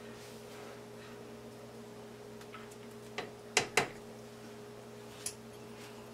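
A cooking spoon knocked twice in quick succession against the rim of a metal stock pot, with a few lighter ticks around it, over a steady low hum.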